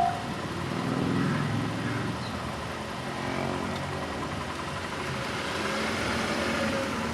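Railway crossing bell's last ring cutting off right at the start, then road vehicles' engines running and moving off, a steady mix of engine hum and traffic noise.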